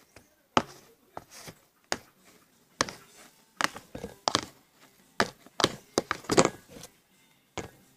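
Irregular sharp taps and knocks, about a dozen, bunched most thickly in the middle, like hard objects being handled and set down on a hard surface.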